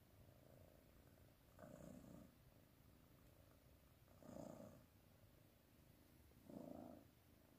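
Cat purring softly, swelling louder three times at a slow, even breathing pace of about once every two and a half seconds.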